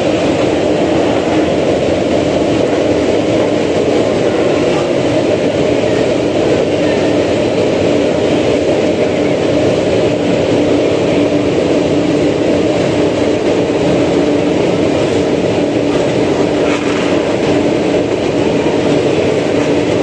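A full grid of MotoGP bikes' 1000 cc four-cylinder race engines running together on the starting grid, a loud, steady, unbroken engine noise with a constant hum underneath.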